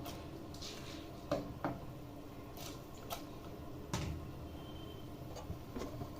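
Soaked rice being tipped into a pressure cooker of boiling tomato masala. About six light clicks and knocks of the vessel or spoon against the cooker sound over a low steady background.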